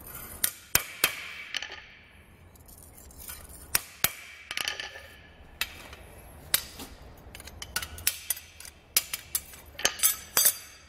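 Ball-peen hammer striking a steel knife blade on the anvil: separate blows with a short metallic ring, irregularly spaced, with a quicker run of blows near the end.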